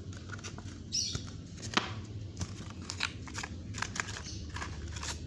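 Small cardboard gift box being handled and opened by hand: scattered scratches, taps and clicks of card, with a brief tearing rustle about a second in. A low steady hum runs underneath.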